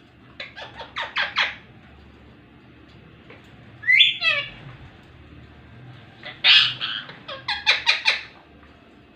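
Ringneck parrot calling: a quick run of short, sharp notes, a single call about four seconds in that falls in pitch, then a louder call followed by another quick run of notes near the end.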